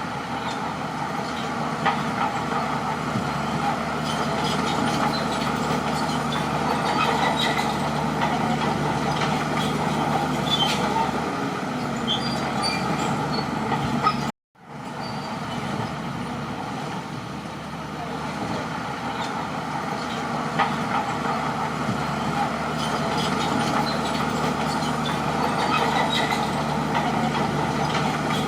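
Crawler bulldozer's diesel engine running steadily under work, with scattered light metallic clicks and squeaks over it. The sound drops out abruptly for a moment a little past halfway, then resumes.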